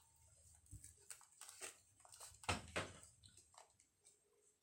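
Faint handling noises of packaging being unwrapped: scattered light rustles and clicks, with the loudest crinkle about two and a half seconds in.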